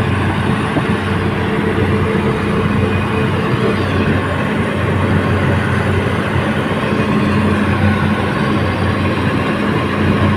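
Excavator's diesel engine running steadily, a constant drone with no change in pitch.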